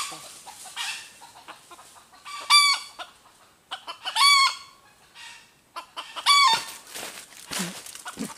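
Junglefowl calling: three short arched calls about two seconds apart, with scattered rustles and ticks from the leaf litter between them.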